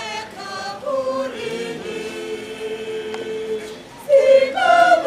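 A choir singing, with long held notes; the singing gets louder about four seconds in.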